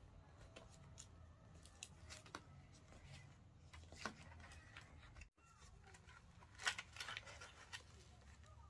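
Faint, scattered crackles and clicks of leaves being handled and folded while wrapping banh chung, with one louder click about seven seconds in.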